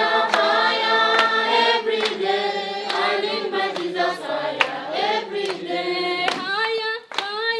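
A group of voices singing together, with a few sharp hand claps now and then.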